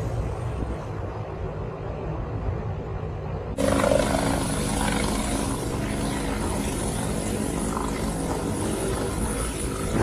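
A low outdoor rumble, cut off about a third of the way in by the loud, steady running of a helicopter's rotor and turbine as it hovers low, coming in to land.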